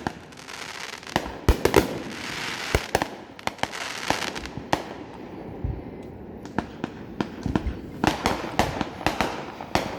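Fireworks going off: a quick string of sharp bangs and pops over a crackling hiss, with the bangs coming thickest near the end.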